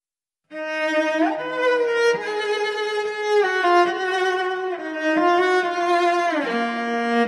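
Instrumental introduction of a song: a slow melody of long held notes that step and slide from one pitch to the next, beginning about half a second in.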